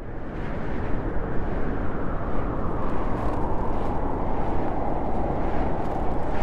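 Strong blizzard wind blowing, a steady rush of noise that fades in quickly at the start, with a whistling tone in it that sinks slightly in pitch.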